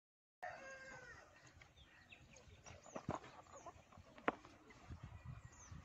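Faint chickens calling and small birds chirping, with a few sharp taps from handling a cardboard box; the loudest tap comes about four seconds in.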